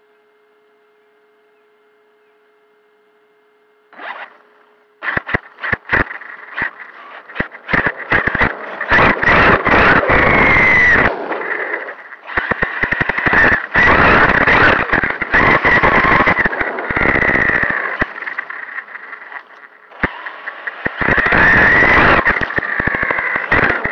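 Traxxas Sledge RC truck driving hard over grass, heard from on board: its brushless motor's high whine rising and falling with the throttle, mixed with loud, choppy rattling and scraping from the tyres, grass and chassis. For the first four seconds or so only a faint steady electrical hum is heard, before the driving noise starts abruptly.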